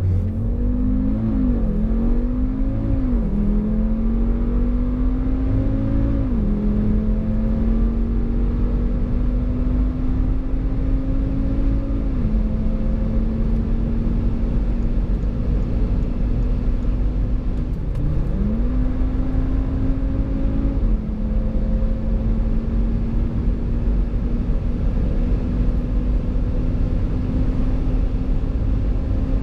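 ABT-tuned 2015 Audi RS3's turbocharged 2.5-litre five-cylinder engine under hard acceleration, its pitch climbing and dropping back with upshifts about one, three, six and twelve seconds in, each gear lasting longer than the last. About eighteen seconds in the note dips and climbs again, shifts once more, then pulls slowly higher over a steady low rumble.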